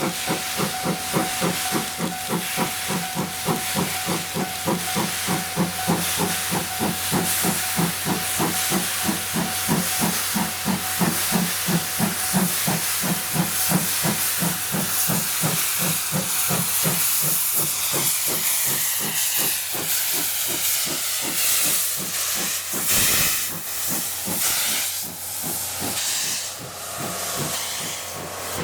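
Steam locomotive passing, its exhaust chuffing in a fast, even rhythm over a steady hiss of steam. The chuffing fades after about twenty seconds, leaving the hiss.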